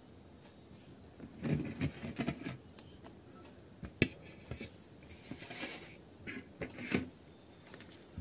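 Crisp fried kachoris handled on a steel plate, with scattered crackling and light taps, and one sharp clink about four seconds in as a small steel bowl is set down on the plate.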